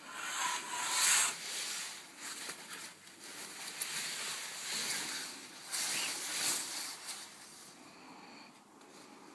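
Rustling and handling noise in several bursts, loudest about a second in and again from about five to six and a half seconds, fading near the end.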